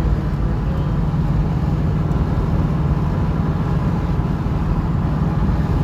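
1972 Chevrolet Nova's engine running steadily at cruising speed with a low, even drone, mixed with road and tyre noise.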